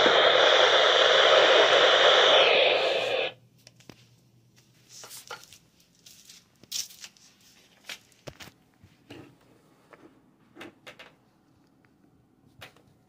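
NOAA weather radio audio, a dense noisy signal with the narrow sound of a radio receiver, cuts off suddenly about three seconds in. After it come only faint scattered clicks and small knocks.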